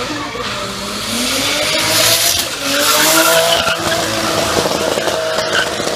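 Race car engine revving up and down hard while its rear tyres spin and squeal in a smoky slide around a hairpin.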